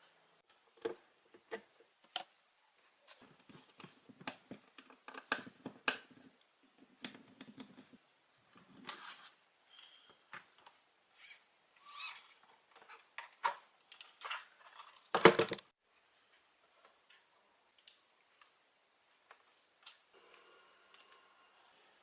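Small parts and tools being handled during work on an RC car: irregular clicks, taps and light rattles, with one louder clunk about fifteen seconds in.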